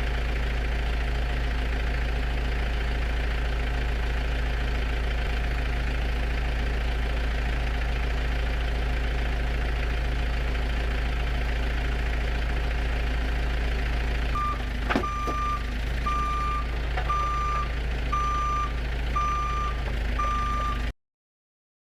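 A vehicle's engine running steadily, and about two-thirds of the way in a reversing alarm starts beeping at just over one beep a second, with one sharp clank as it begins. The sound cuts off abruptly about a second before the end.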